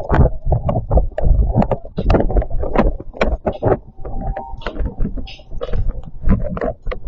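Strong gusty wind rumbling on the microphone, with rapid, irregular rattling and knocking of things shaken by the wind.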